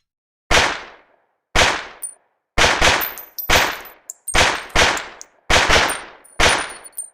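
Smith & Wesson 22A .22 LR pistol firing a string of about a dozen shots over six seconds, at uneven spacing and some in quick pairs. Each report trails off in a short echo, with faint high metallic pings between some shots.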